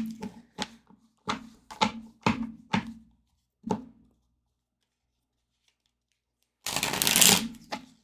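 A deck of cards shuffled by hand: a run of short, separate card strokes about twice a second, then a pause of near silence, then a loud riffle shuffle about seven seconds in.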